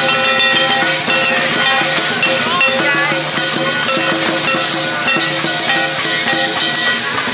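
Music: a melodic tune of pitched instruments over a steady percussion beat.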